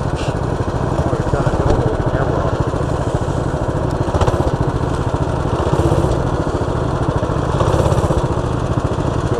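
Baja mini bike's small engine idling steadily with a fast, even putter.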